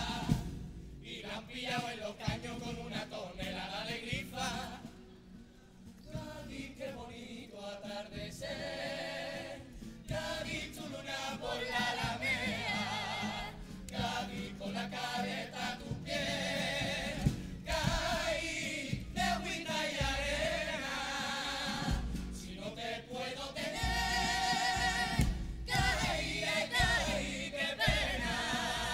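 A youth carnival comparsa choir singing a Cádiz carnival song in harmony, with guitar accompaniment, in phrases broken by short pauses.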